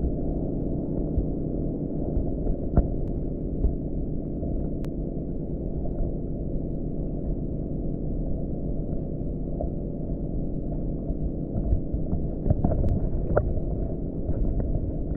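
Muffled sound from a camera held under the lake's surface: a steady low rumble and hum of water against the submerged microphone, with scattered faint clicks.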